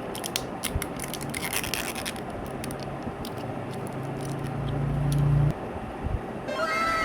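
Crackling clicks and scraping, typical of chocolate-bar wrappers being handled. Partway through, a low hum swells and cuts off suddenly. Near the end, a cat meows with a falling pitch.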